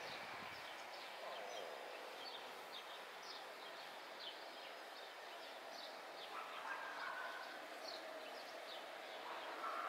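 Faint background with birds chirping: many short, high calls scattered through, over a low steady hum.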